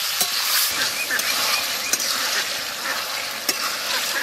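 Wooden spatula stirring a thick taro-stem and fish-head curry in a metal wok, with steady sizzling and a few sharp knocks of the spatula against the pan.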